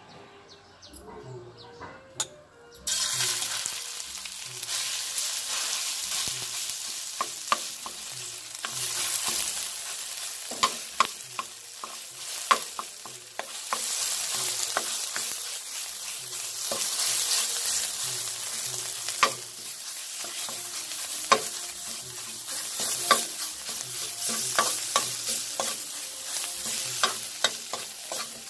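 Red curry paste frying in hot oil in a wok. A loud sizzle starts suddenly about three seconds in and carries on while a metal spatula stirs and scrapes it, clicking against the pan many times.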